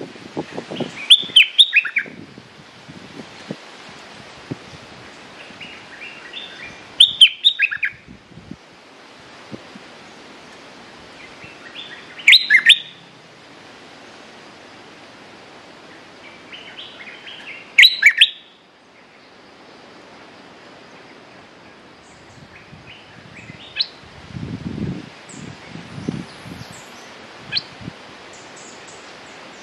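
Bulbul singing short, loud, fast phrases of whistled notes about every five seconds, four times, then softer scattered notes in the last part. A few low dull thuds come near the end.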